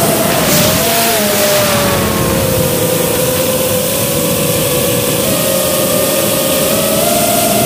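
5-inch FPV quadcopter's brushless motors and propellers whining under throttle over a rush of air noise. The pitch drops a little a second or two in, holds steady, then climbs back near the end.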